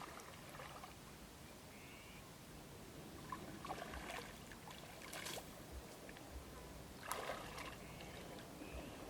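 Faint splashing and sloshing of shallow water, in bouts about three to five seconds in and again about seven seconds in, with two short high chirps.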